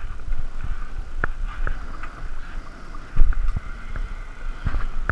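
Wind buffeting the microphone as a steady low rumble, with a few sharp clicks and a louder knock about three seconds in.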